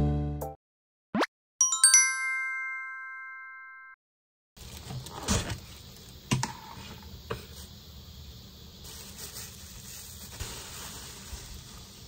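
Piano music cuts off, then a short rising whoosh and a bright ringing chime sound effect that fades over about two seconds. After a brief silence, a faint steady hiss of room noise comes in with a few light knocks and clicks.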